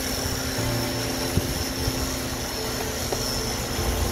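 Steady drone of a mobile crane's diesel engine running while it holds the suspended roller tyre, with a low rumble and a faint high whine; a single light knock about a second and a half in.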